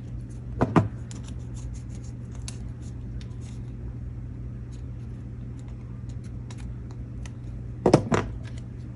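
Paper and craft materials handled on a tabletop: a sharp tap about a second in and a quick double tap near the end, with faint scattered ticks over a steady low hum.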